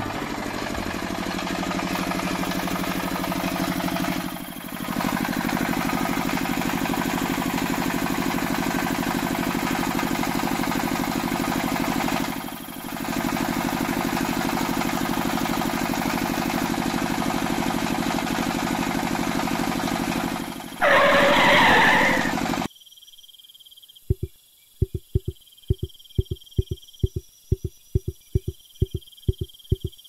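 Single-cylinder tractor engine running steadily at a chugging idle, dipping briefly twice. Near the end a short louder burst comes, then the engine cuts off abruptly, leaving a quiet background with a rapid series of soft clicks like insects chirping.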